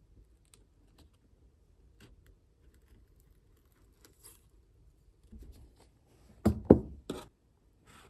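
Light clicks and taps of small tools and a tablet being handled during repair work, then three sharp knocks in quick succession about six and a half seconds in.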